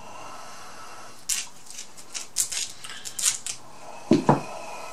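Kitchen shears snipping and cracking through Atlantic red crab leg shells: a run of sharp clicks and crunches, with two louder, deeper cracks near the end.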